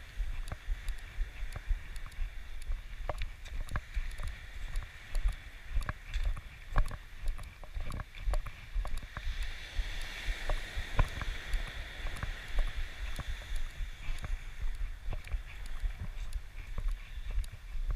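Footsteps crunching on a sand-and-pebble beach, an irregular run of clicks, over wind rumble on the microphone. A steady hiss of surf washes on the shore and swells about halfway through.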